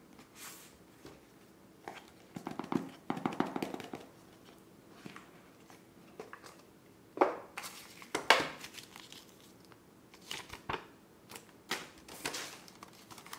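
A small cardboard earbud box being handled and opened: rustling, scraping and tapping of the box and its lid, with a dense stretch of crackling rustle about two seconds in and a few sharper knocks later on.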